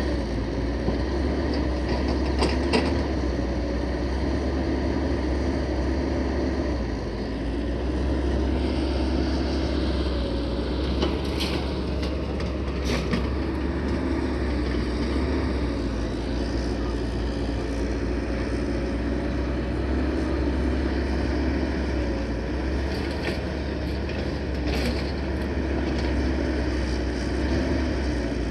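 A diesel dump truck's engine running steadily, a deep rumble with a steady hum. A few short clicks or knocks come through it.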